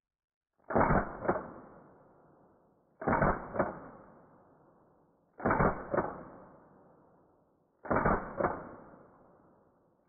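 Four evenly spaced pairs of muffled knocks, one pair about every two and a half seconds, each pair fading out slowly after it.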